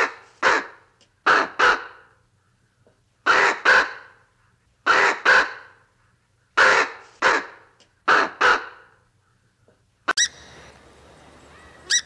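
A crow-family bird cawing in pairs of harsh calls, six pairs over about ten seconds. Near the end the call stops and a steady background hiss follows, with a couple of sharp clicks.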